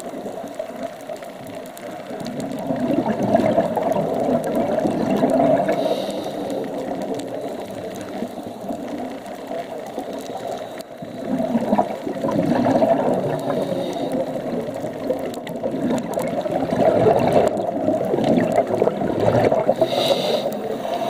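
A scuba diver's exhaled bubbles from the regulator, gurgling in long bursts that swell and fade every several seconds with the breathing, heard underwater.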